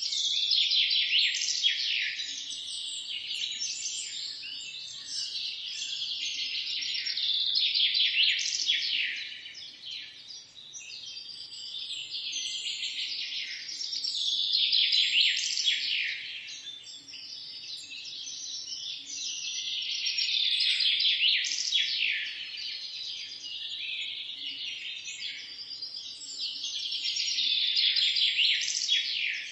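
Songbirds singing in a dense chorus of quick, high chirps and trills that overlap without a break, swelling louder and easing off about every six or seven seconds.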